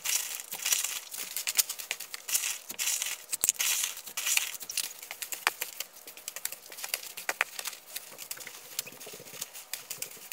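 Damp sand being tipped from a plastic tub onto potting soil in a plastic bin, then worked into the soil by a gloved hand: a dense, gritty crackling and scraping. It is busiest in the first few seconds and softer from about halfway.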